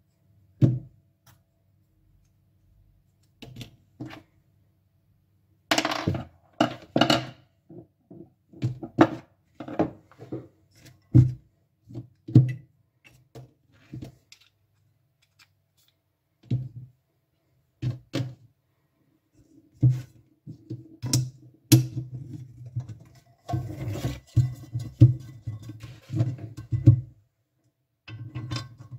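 Knocks and clicks of a frying pan's plastic handle and its metal screw and fitting being handled and set down on a hard surface. About twenty seconds in they grow denser and busier as the handle is fitted against the pan's side.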